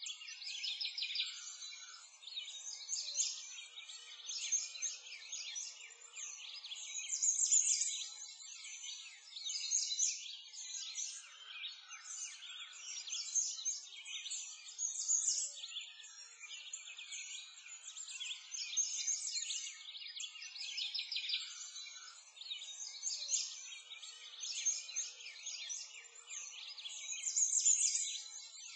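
A chorus of many songbirds chirping and singing at once, dense high twittering that swells and fades every few seconds.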